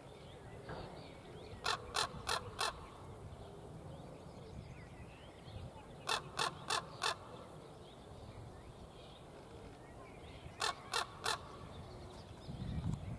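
Common raven (Corvus corax) calling: three bouts of short, harsh calls in quick succession, four, then four, then three, each bout lasting about a second.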